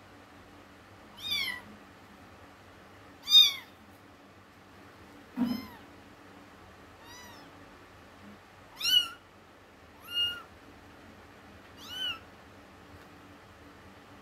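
Kitten mewing: seven short, high mews, one every second or two, each rising and then falling in pitch.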